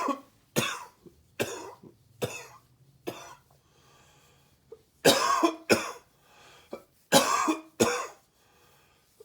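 A man coughing: a bout of short, sharp coughs, a pause of about a second and a half, then a louder bout of harder coughs. The coughing comes from sub-zero cold air choking him up, not from a cold.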